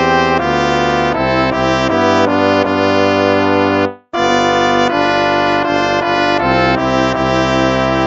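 Instrumental hymn music: held chords in a brass-like tone. It breaks off for a moment about halfway through, then goes on.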